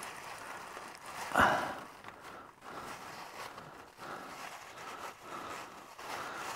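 Quiet rubbing and rustling of a paper towel being worked around the oily steering piston rod and fitting, with one short louder rustle about one and a half seconds in.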